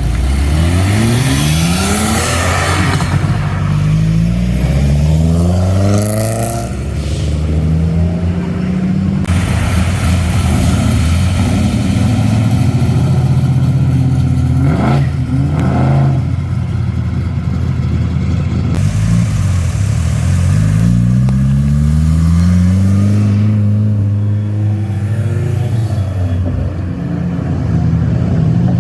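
Car engines pulling away hard, the revs climbing and dropping back at each gear change, in two spells: one at the start and another about two-thirds of the way through. A steady engine drone fills the stretch between.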